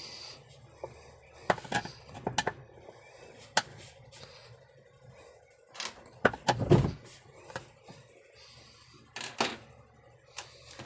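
Irregular knocks and clanks of a tool on metal while a washing machine's seized gearbox bolt is being worked loose, with a louder cluster of strikes about two-thirds of the way in. The bolt does not come free.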